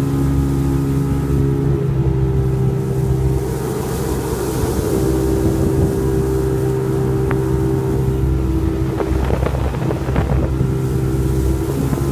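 Motorboat engine running steadily under way, holding an even pitch, with a rougher stretch about four seconds in and a few light knocks about three-quarters of the way through.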